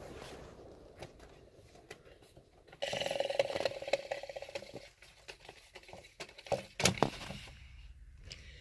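Lasko 3733 box fan's blades winding down and fading, then a faint buzzing rattle about three seconds in that lasts about two seconds as the fan is started again, followed by a few sharp switch clicks.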